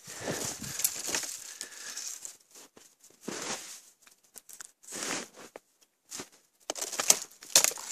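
Footsteps crunching in snow, a series of uneven steps about a second apart, coming closer together near the end.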